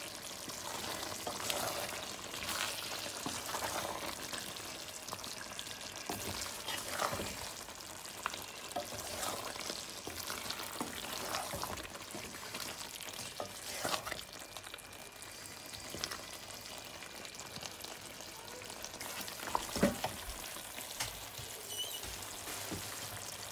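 Chicken and zucchini curry sizzling in a pan as a wooden spatula stirs it, with a few knocks and scrapes of the spatula against the pan, the loudest near the end.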